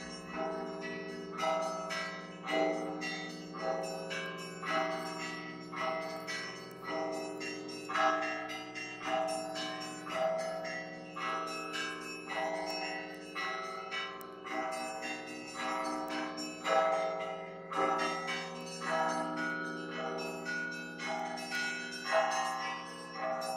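Russian Orthodox bell ringing from the Spaso-Evfimiev Monastery belfry: several bells of different sizes struck in a steady rhythm, with an accent about once a second over the sustained low hum of a large bell.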